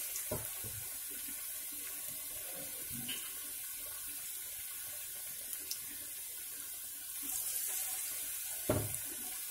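Mini bread pakoras in gram-flour batter deep-frying in hot oil in a kadhai on a low flame: a steady sizzling hiss, getting a little louder about seven seconds in. A brief low thump sounds near the end.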